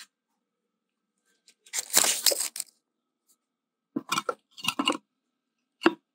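Steel van wheel being lifted and fitted back onto the hub: a rough scraping rustle about two seconds in, then a quick run of knocks and clunks as the wheel is worked onto the hub, and one sharp knock near the end.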